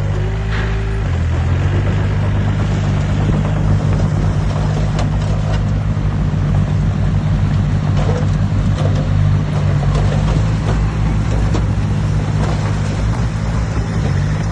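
Heavy diesel engine of earthmoving machinery running steadily, its note shifting about a second in, with scattered clanks and knocks over it.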